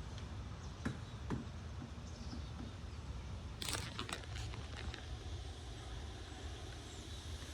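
Strong wind buffeting the microphone, a steady low rumbling noise, with a few sharp clicks about a second in and a short burst of crackles around four seconds.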